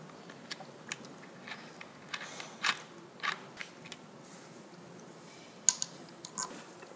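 Quiet room with scattered small clicks and rustles from people shifting and handling things at a table, and a couple of short breathy puffs of stifled laughter about three seconds in. A sharp click about two-thirds of the way through is the loudest sound.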